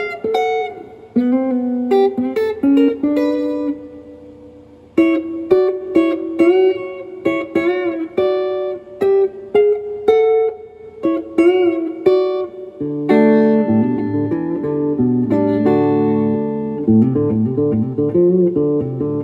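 Humbucker-equipped electric guitar played fingerstyle through a Fender Princeton Chorus 2x10 solid-state amplifier: single-note lines with string bends that glide the pitch up and down, imitating a slide player. About two-thirds of the way through, it moves to fuller, sustained chords.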